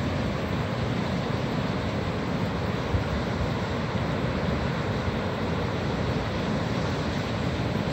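Steady roar of the Tulameen River in heavy flood: a deep, even rushing of fast, swollen water that does not let up.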